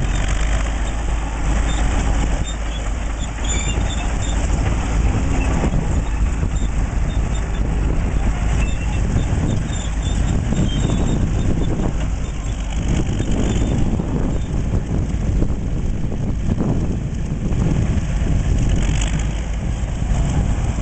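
Engine of a 1940s Caterpillar D8 bulldozer, a diesel, running steadily at a deep, even pitch.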